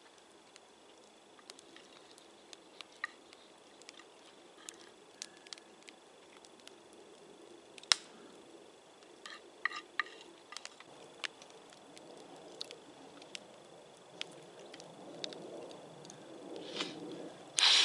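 Campfire crackling with scattered sharp pops and clicks, along with light knocks of a wooden spatula in a cast-iron-style frying pan over the fire. Near the end comes a short, louder burst of noise.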